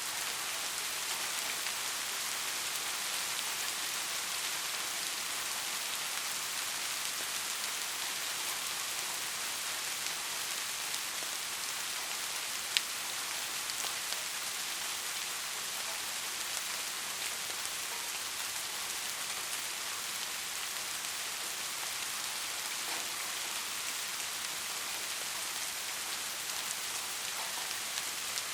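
Soft rain falling steadily: an even hiss of fine drops, with one sharper drop tick about halfway through.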